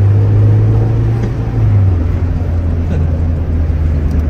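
Steady low engine and road drone inside a moving car's cabin, its pitch dropping slightly about two seconds in.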